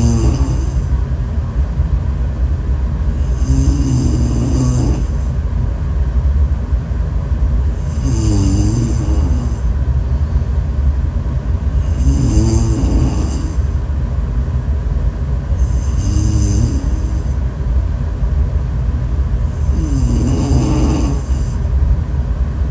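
A person snoring in a slow, even rhythm, one wavering snore about every four seconds, over a steady low rumble.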